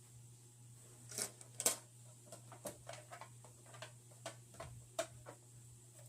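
Pokémon cards and card-pack wrappers being handled: two sharper crinkle-like snaps about a second in, then a string of light clicks and taps, over a faint steady low hum.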